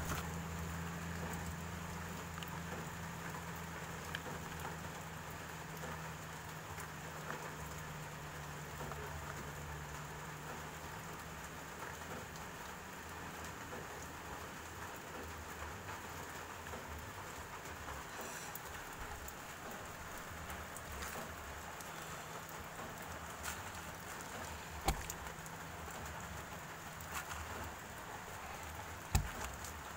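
Electric tyre regroover cutting a tread groove in a rubber tyre: a faint, steady crackling hiss as the heated blade works through the rubber, over a low hum that weakens partway through. A few sharp clicks come near the end.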